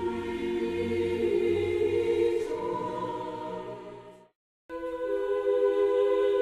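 Background music of held, choir-like chords that fades out about four seconds in. After half a second of silence a new piece of held chords begins.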